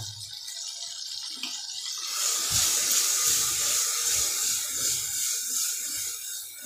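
Onion-tomato masala sizzling in hot oil in a pressure cooker, a steady hiss that grows louder about two seconds in as a spoon starts stirring it, with soft scrapes and knocks of the spoon against the pot.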